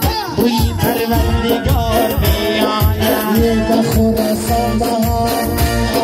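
Korg Pa800 arranger keyboard playing a dance accompaniment with a steady beat and shaker-like percussion, while a man sings over it through a microphone, amplified.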